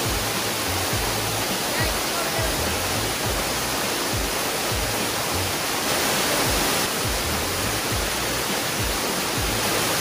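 Steady rushing of a waterfall, with background music carrying a regular low beat underneath.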